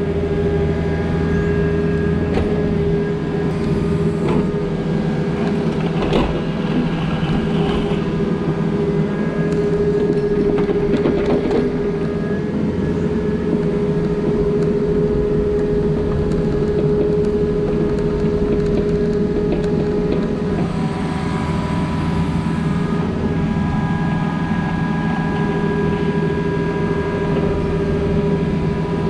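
Takeuchi TB260 mini excavator's diesel engine running steadily at working speed, with a steady whine over the engine hum and a few knocks along the way.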